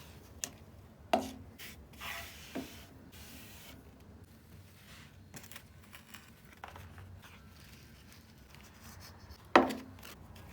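A few sharp knocks of objects being handled and set down, the loudest about a second in and near the end, with a brief rustle about two seconds in.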